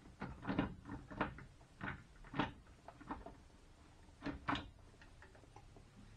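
Irregular knocks and clunks of a Nissan Z32 300ZX brake booster being wrestled off the car's firewall, with the loudest knocks about two and a half seconds in and again around four and a half seconds in.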